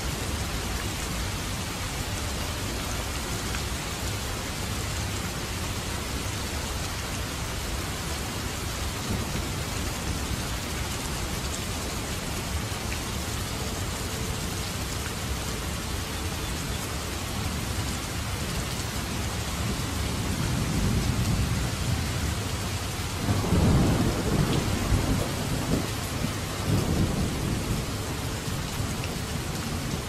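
Steady rain falling, with thunder rumbling low about two-thirds of the way in, loudest in two rolls before fading back under the rain.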